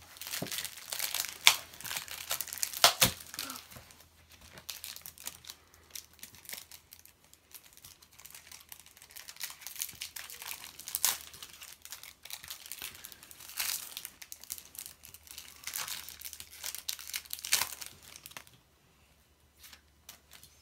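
Foil wrapper of a Match Attax trading-card pack being torn open and crinkled by hand, in irregular crackling bursts that stop shortly before the end.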